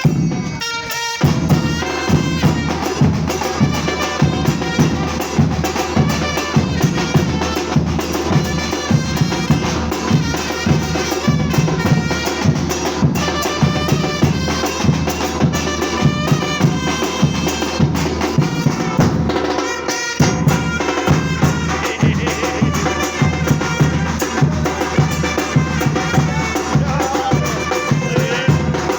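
Music: a batucada percussion ensemble playing a steady driving beat on bass drums and other drums, with pitched melodic instruments over it. The drumming drops out briefly about a second in and again about two-thirds of the way through.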